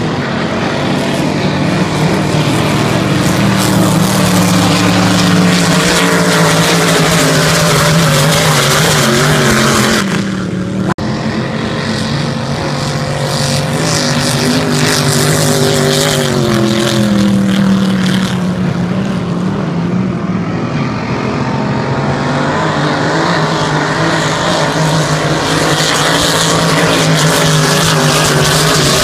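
Racing hydroplanes' engines running at full speed as the boats race past, a loud continuous engine drone. There is a brief dip about ten seconds in, and the pitch slides down a little past the middle.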